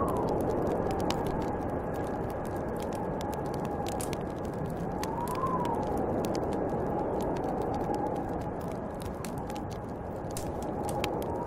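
Snowstorm wind howling steadily, with a whistling note that rises and falls with each gust about every five or six seconds, over the scattered crackle and pops of a wood fire.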